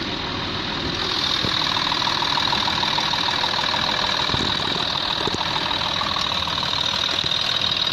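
Ford 2.7 V6 turbo diesel engine of an SZ Ford Territory idling steadily, heard at close range in the open engine bay, getting a little louder about a second in.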